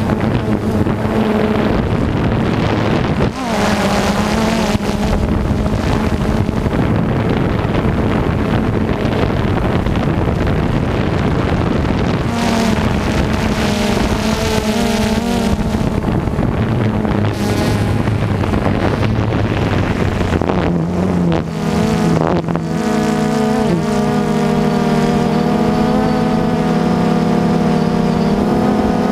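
Engine of heavy harvest machinery running steadily, its pitch stepping up and down several times as speed or load changes.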